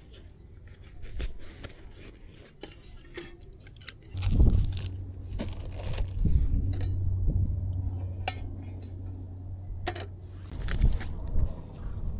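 Scattered clicks and clinks of small hard objects being handled. A low steady hum comes in about four seconds in and stops about ten seconds in.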